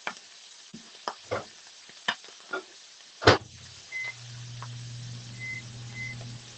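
Microwave oven being loaded and started: a few light knocks, the door shut with a loud clunk about three seconds in, then three short keypad beeps as the oven starts up and hums steadily.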